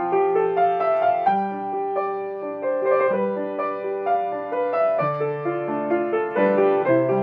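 Solo grand piano playing a piece of held chords with a melody moving over them, the notes changing every half second or so.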